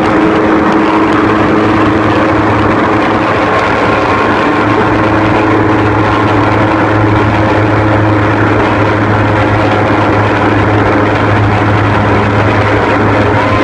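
Airboat engine and propeller running steadily, a loud, unchanging drone with a constant low hum.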